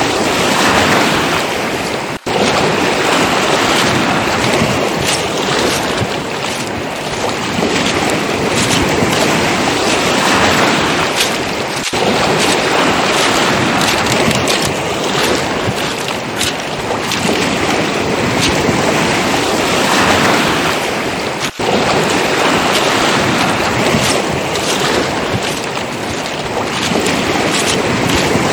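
Waves surging and washing over a pebble beach, swelling and ebbing every few seconds, with wind buffeting the microphone. Pebbles click and crunch throughout, and the sound briefly drops out three times.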